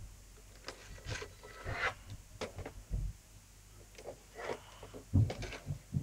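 Handling noise of a toy car: irregular clicks and scraping rustles with a few dull knocks, the loudest about five seconds in.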